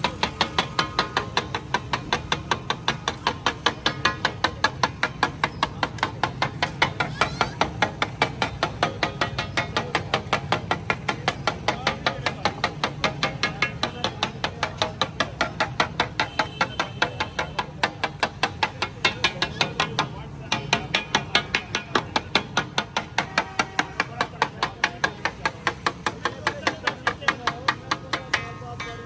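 Metal spatula striking a flat iron tawa in a steady rapid rhythm, about three to four strokes a second, as daal is worked on the griddle, with a brief pause about twenty seconds in.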